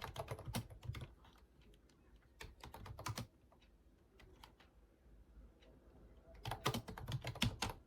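Typing on a computer keyboard: quick runs of key clicks in several short bursts with pauses between, the busiest burst near the end.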